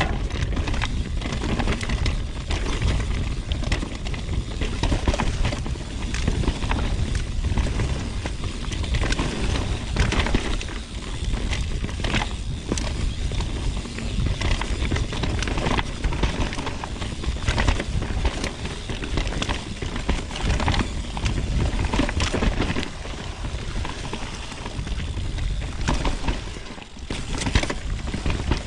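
A mountain bike descends a dirt trail at speed, with tyres on dirt and the bike clattering over roots and bumps in a continuous run of knocks and rattles. Heavy wind rumbles on the microphone underneath.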